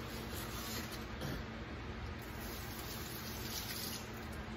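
Steady low hum and hiss of background room noise, with no distinct event.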